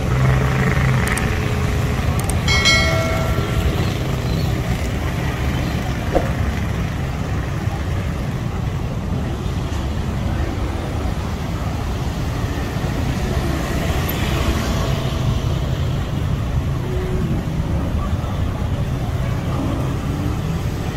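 Steady low outdoor background rumble. A brief pitched tone sounds about two and a half seconds in.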